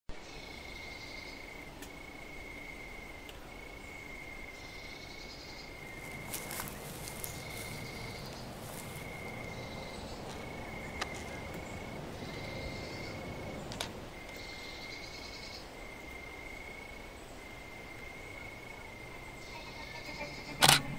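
Crickets chirping in repeated short trills at one steady pitch over a faint night-time hiss. Near the end a single loud sharp click, a camera shutter firing.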